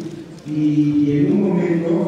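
A man's voice with long, held, chant-like notes and a short drop in level about half a second in.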